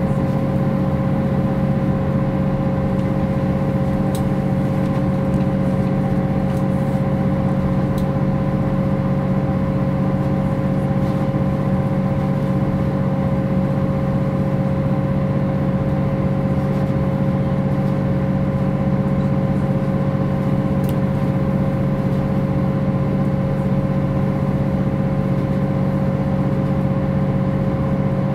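Engine of a MAN NG 262 articulated bus running steadily at an unchanging engine speed, a constant low drone with a steady higher whine.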